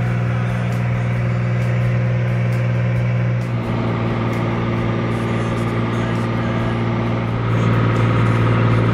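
Light aircraft's piston engine and propeller droning steadily, heard inside the cabin. The drone shifts abruptly about three and a half seconds in and again near the end, where it grows louder.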